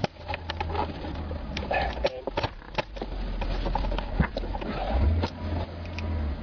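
Irregular sharp clicks and knocks from the Saturn's plastic steering-column covers and hand tools being handled, with a low rumble underneath.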